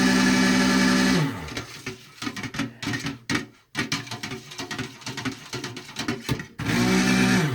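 Stick blender motor running steadily, then winding down about a second in, followed by light knocks and clatter of the blender in the pot of soap batter; near the end the motor spins up again in a short burst and stops. It is mixing oils and lye into soap batter.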